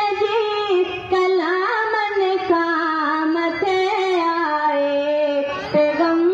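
A boy singing a Sindhi naat solo, without instruments, drawing out long held notes that bend and glide in pitch.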